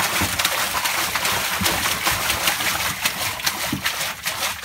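Water splashing and churning in a fish-fry tank: a hose jets water in while hands stir it, giving a steady mass of splashes and crackles.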